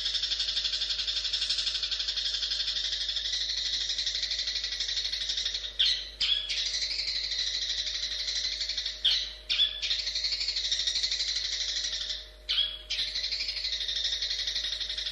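Long-tailed shrike (cendet) singing a fast, continuous chattering song, broken a few times by short, louder call notes. The song stops near the end.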